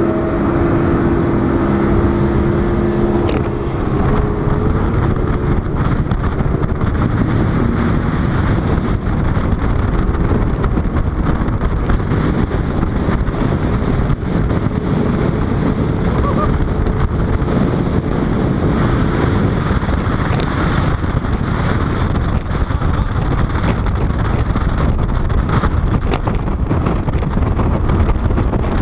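Bass boat running at speed across open water: a steady loud rush of wind over the microphone, with the outboard engine's hum underneath, clearest in the first few seconds.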